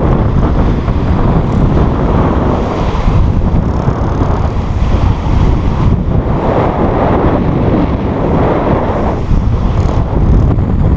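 Wind buffeting the microphone over the rush and splash of a small sailboat's bow wave as it sails fast through choppy water.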